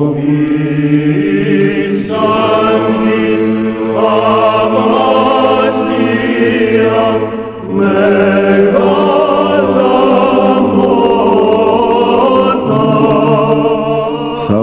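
A choir chanting slow, held notes in long phrases, with a brief pause partway through.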